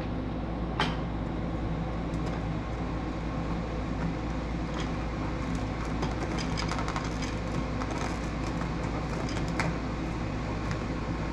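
Scattered light clicks and taps of a carbon fiber grille insert being slid and pressed onto a car's front grille opening, over a steady low hum.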